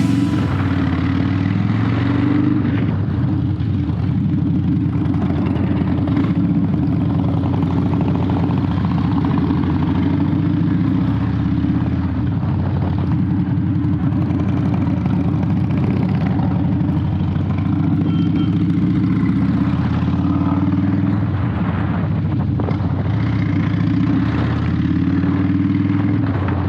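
Harley-Davidson V-twin motorcycle engine running steadily while riding, with a low, continuous exhaust note that shifts slightly in pitch.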